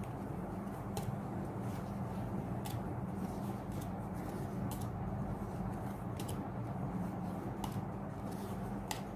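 Pokémon trading cards being flipped through one at a time, each card sliding off the stack with a light crisp snap about once a second, over a steady low hum.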